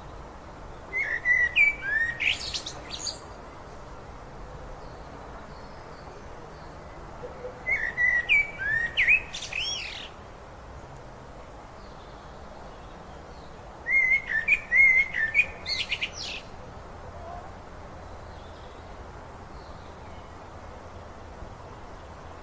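A songbird singing three short phrases of quick, sweeping whistled notes, each about two seconds long and several seconds apart, over a steady background hiss.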